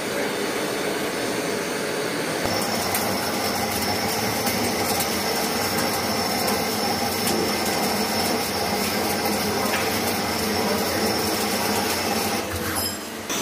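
CNC lathe running, its spindle turning a metal shaft while the turning tool cuts. A steady high whine comes in about two and a half seconds in and stops shortly before the end.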